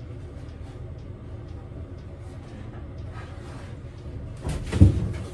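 Steady low rumble of background hum, then a loud thump near the end as something hard is knocked or set down.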